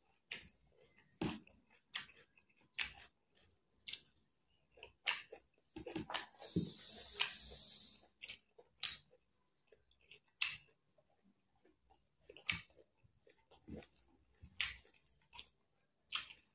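Close-miked chewing of a mouthful of rice, with wet mouth clicks and smacks at irregular intervals. A steady hiss lasting about a second and a half comes a little past the middle.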